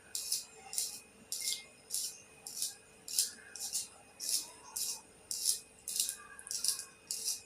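Handheld pencil sharpener shaving a wooden pencil in quick, regular scraping strokes, about two a second.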